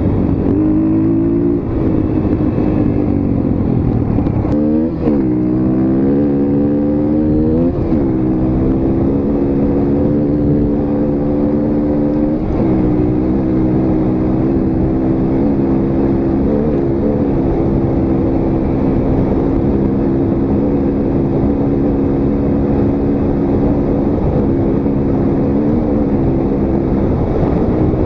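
Motorcycle engine running steadily under the rider, its revs rising and dropping briefly several times.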